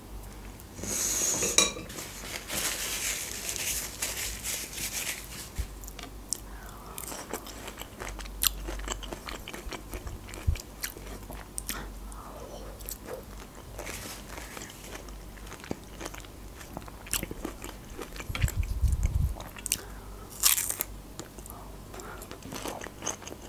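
Close-miked eating: crisp crunching bites and wet chewing and mouth sounds. There is a louder crunch about a second in and another near the end.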